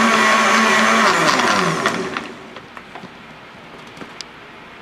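Countertop blender motor running on a milkshake, switched off about a second in; its pitch falls as the blades spin down over about a second. A few light clicks follow.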